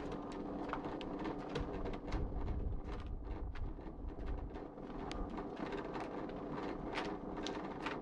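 Packaging conveyor running under a Hitachi inkjet date coder: a steady machine hum with irregular sharp clicks and ticks.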